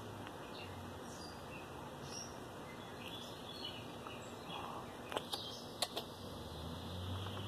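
Faint bird chirps over a steady outdoor background hiss. Three sharp clicks come a little past five seconds in.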